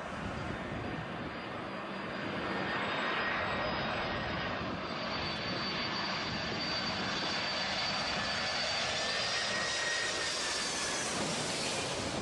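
Jet airliner engines running: a steady rush with a high whine in it, growing louder about two seconds in and then holding.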